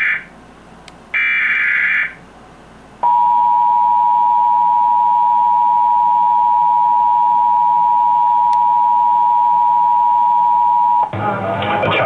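Emergency Alert System broadcast played through a television: the last SAME header data burst, a buzzy screech about a second long, then after a short gap the EAS attention signal, a steady two-tone 853 and 960 Hz tone held for about eight seconds. A voice starts reading the alert near the end.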